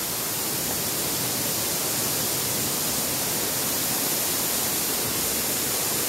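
Steady rush of water from a waterfall and a shallow stream running over rocks, an even hiss that does not change.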